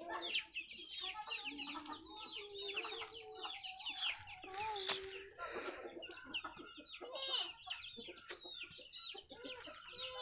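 Chickens clucking and calling, with many short high calls repeating throughout.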